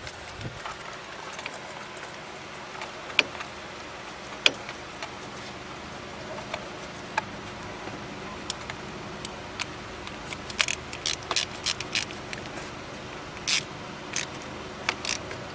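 Scattered sharp metal clicks and taps of a socket and extension, then a quick run of ratchet clicks two-thirds of the way through, with a few more near the end: a 3/8 stubby ratchet snugging a spark plug into the head of a Chevy 4.2 I6.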